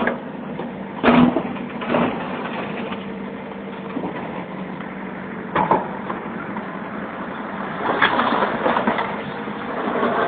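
Backhoe engine running steadily, with sharp clanking knocks about a second in, again near two seconds and near five and a half seconds, then a busier stretch of knocking and scraping about eight seconds in.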